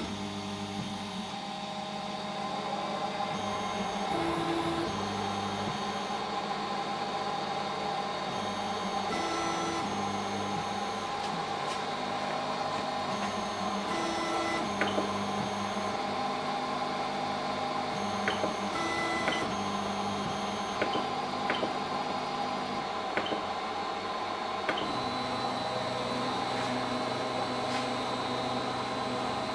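Telion Rock V3.0a 3D printer's stepper motors whining in tones that shift in steps as the print head moves across the bed during automatic bed mapping, over a steady hum. Several sharp clicks come in the middle stretch.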